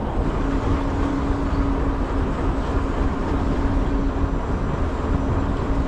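Fishing boat's engine running steadily, a constant hum over a rushing noise of wind and sea.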